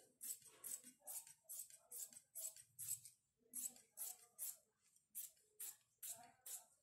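Tailor's shears snipping through trouser cloth in a steady run of short cuts, about three a second, with a couple of brief pauses as the blades are repositioned.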